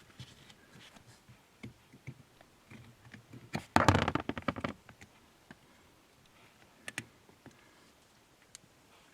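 Hands working the rubber pad off a car's brake pedal: scattered small clicks, with a louder second of rubbing and scraping about four seconds in.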